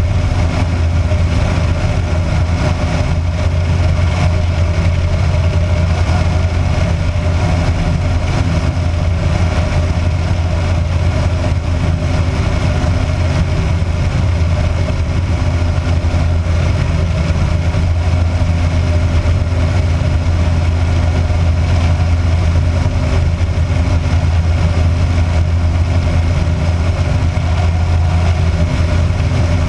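Kitfox light aircraft's engine and propeller running steadily in flight: a constant low drone that does not change, heard from a camera mounted outside the fuselage.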